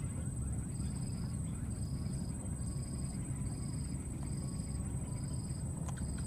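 Outdoor ambience among vegetation: a steady high-pitched hum with a short high call repeating about once a second, over a constant low rumble, and one sharp click near the end.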